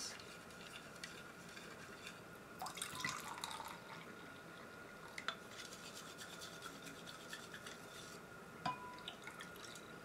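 Faint scraping and light clinks of a wooden stick inside a measuring cup as dashi broth is poured and dripped into a glass bowl of beaten egg, busiest a few seconds in, with a couple of single clicks later.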